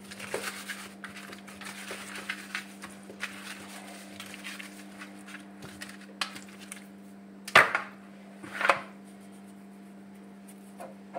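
Black pepper being ground or shaken onto raw pork ribs: rapid, scratchy clicking for about six seconds. Then come two louder knocks about a second apart, all over a steady low hum.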